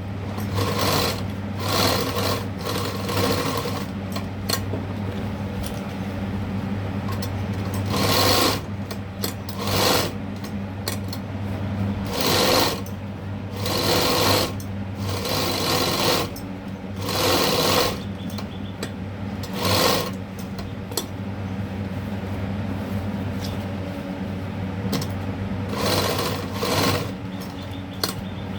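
Sewing machine stitching a cuff in short runs of a second or two, again and again, with a steady low hum between the runs.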